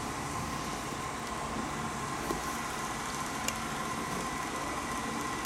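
Steady background room noise with a faint constant whine, like an air conditioner or fan running, and two small clicks from the shoe being handled.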